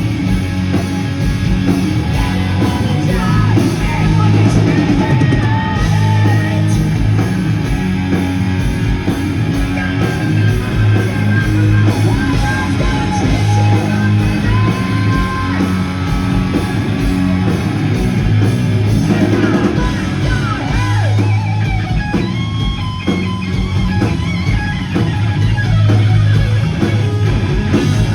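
Loud hard rock played by a live band: electric guitar, bass and drums, with singing.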